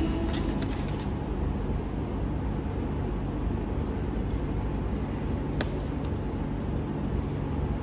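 Steady low rumbling background noise with a single sharp click about five and a half seconds in.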